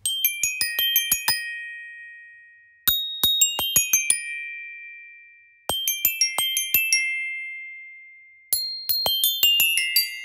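Glockenspiel (orchestra bells) playing quick runs of high struck notes in short phrases. Four runs come in turn, each left to ring out for a second or so before the next begins.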